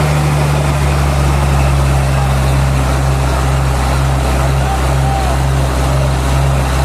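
Sawmill machinery's engine running steadily with a deep, even hum.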